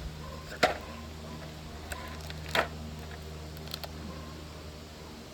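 Sharp plastic clicks as clear polycarbonate keycaps are handled and pressed onto the keyboard's switches: two loud clicks, the first under a second in and the second a little past two and a half seconds, with a few fainter ticks between, over a steady low hum.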